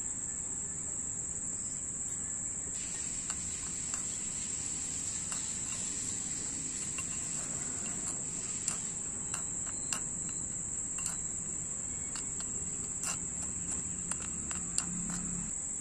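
A steady high-pitched insect drone, with scattered light clicks of a small spoon against a miniature clay pot as cashews are stirred while frying in ghee.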